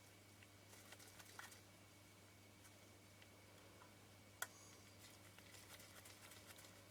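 Near silence with a faint steady hum, broken by a few light ticks and clicks of small screws being handled on a Canon P camera body, with one sharper click about four and a half seconds in.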